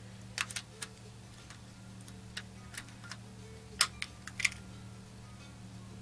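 A dozen or so light, sharp clicks and taps at uneven spacing as small clock movements and their packaging are handled, over a steady low hum.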